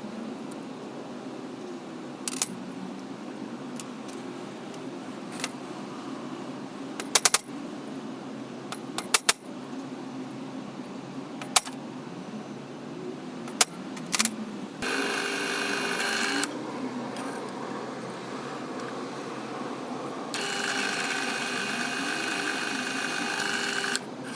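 Metal parts clinking and clicking as they are handled, several separate knocks. Then a small electric motor runs twice with a steady whine, first briefly and then for a few seconds, starting and stopping abruptly.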